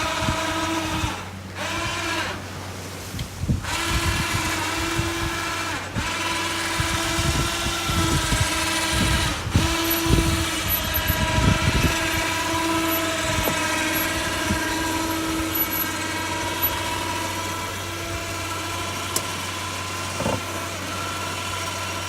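Boat-trailer winch running steadily with a pitched whine as it draws the boat up onto the trailer, with a few knocks partway through. The whine cuts off just as the haul-up is complete.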